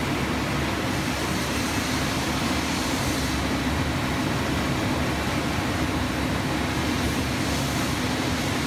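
Daewoo Puma 240LC CNC lathe running: a steady hiss of machine noise with an even low hum.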